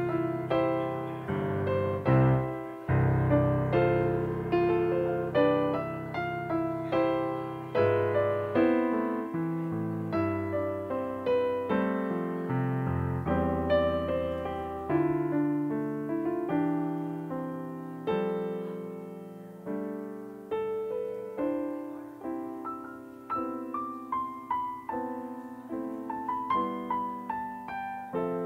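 Solo piano playing a gentle piece, each note struck and then fading, with low bass notes held under the melody.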